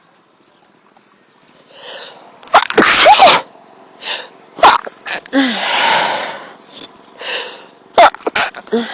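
A woman's sneezing fit: after a couple of quiet seconds, a rising intake of breath and then about three loud, sudden sneezes over the next six seconds. She puts them down to her cold, or perhaps a mild tree-pollen allergy.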